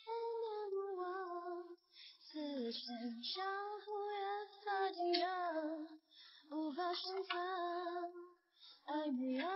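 A high-pitched female voice singing a melody, held notes in phrases with short silent gaps between them.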